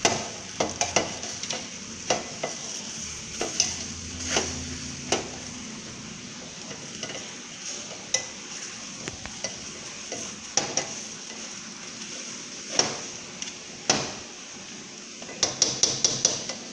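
Egg-battered bread frying in oil in a stainless skillet, a steady sizzle, with metal utensils clicking and tapping against the pan as the pieces are turned and pricked; a quick run of taps near the end.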